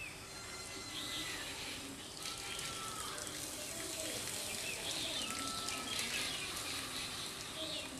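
Birds chirping and calling, with short whistled notes that glide up and down, over a faint steady background hiss.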